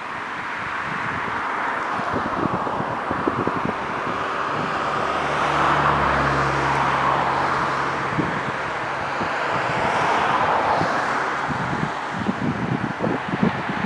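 Distant vehicle running, a steady rush that swells and fades, with a low hum for a few seconds about midway. Gusts of wind buffet the microphone, most strongly near the end.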